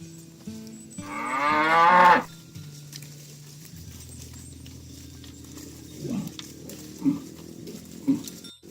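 Cattle mooing: one loud, drawn-out moo about a second in, followed by three short, quieter calls about a second apart near the end.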